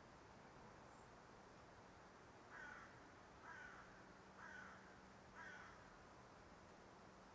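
A crow cawing four times, about a second apart, each caw harsh, short and falling in pitch, faint against a quiet hiss.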